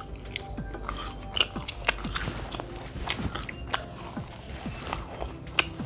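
Close-miked chewing of cheesy meatball spaghetti, with many small wet smacks and clicks of the mouth at an uneven pace.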